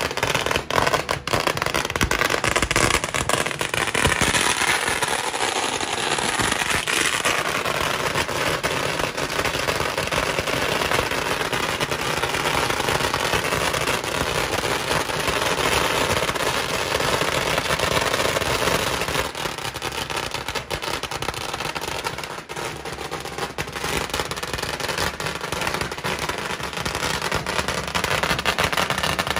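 A long string of firecrackers going off in a continuous rapid crackle of sharp bangs, with no pause. It eases a little about two-thirds through, then picks up again.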